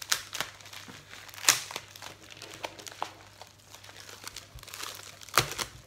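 White plastic packaging pouch crinkling and rustling as it is opened by hand, with a few sharp crackles, the loudest about a second and a half in and again near the end.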